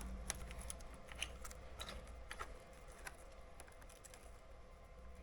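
Faint, irregular small metallic clicks and ticks of an Allen key turning out the fuel pump mounting bolts, with a low steady hum beneath.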